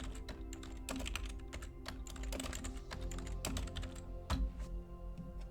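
Computer keyboard typing: quick, irregular keystroke clicks, with a somewhat louder click a little past four seconds in. Quiet background music with held notes plays underneath.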